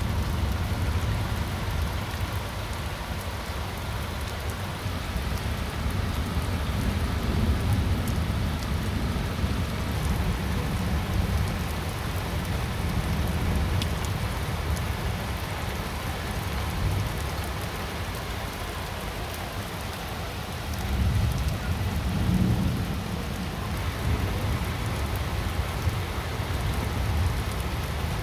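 Steady rain falling, with a low rumble underneath that swells twice about three-quarters of the way through.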